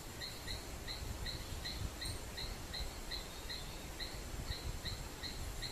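A small night-calling creature chirping: short, high chirps repeated evenly, about three a second, over a faint low background rumble.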